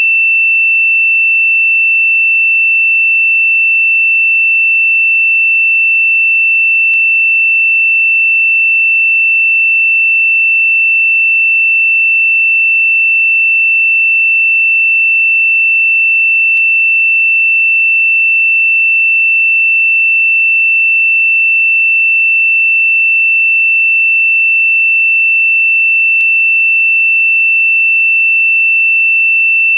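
A single steady, high-pitched pure sine tone held at one unchanging pitch and level, an electronically generated meditation frequency.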